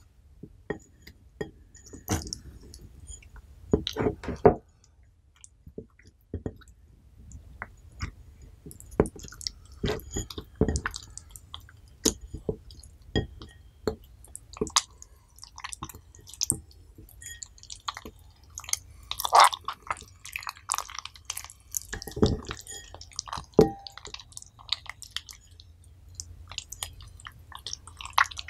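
Hands squeezing and kneading sticky clear slime mixed with sea-buckthorn berries: irregular wet squelches and sharp sticky pops and clicks as the slime is pressed and pulled apart.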